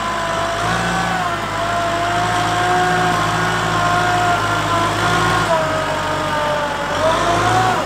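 Kubota M6040 tractor's four-cylinder diesel engine running steadily under load as it pushes dirt with a front blade, with a whine above the engine note. The pitch drops slightly about five and a half seconds in and rises again near the end.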